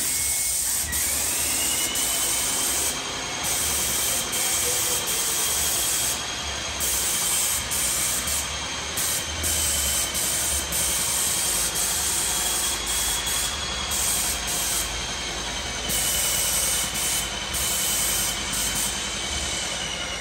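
Paint spray gun hissing steadily as it sprays paint onto drywall, with a faint high whine running under the hiss. The spray drops off briefly a few times.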